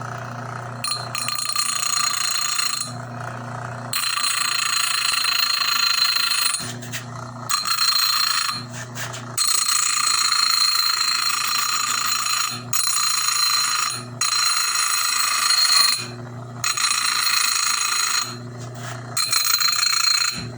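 Homemade bench grinder driven by a fan motor, humming steadily, with a workpiece pressed against the spinning wheel about eight times for one to three seconds each, giving a loud, ringing, high grinding noise.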